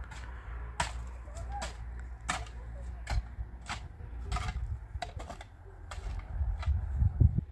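A series of sharp knocks or taps at an uneven pace, about one or two a second, over a low rumble that grows louder near the end.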